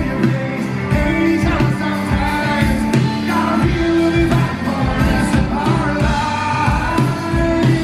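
Live rock band playing, with a male lead singer over electric bass guitar, keyboard and a steady beat.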